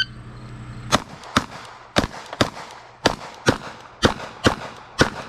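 Glock pistol fired in a rapid string of about nine shots, the first about a second in, coming roughly in pairs.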